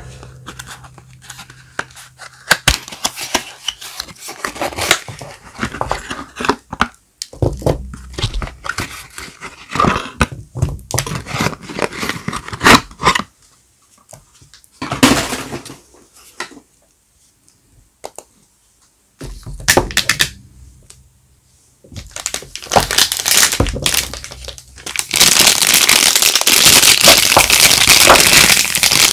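Soap wrappers being torn open and crinkled by hand, with scattered taps and clicks and short pauses. A long stretch of loud, continuous crinkling starts near the end.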